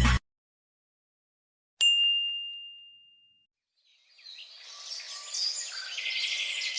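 A single bright bell-like ding that rings out and fades over about a second and a half. A couple of seconds later, birds chirping fade in over an outdoor background.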